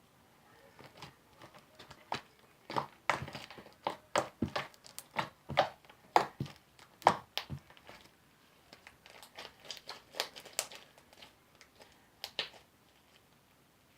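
Sticky white-glue soap slime being kneaded and stretched by hand: a run of wet clicks and pops, densest in the first half, then a sparser patch before it stops near the end.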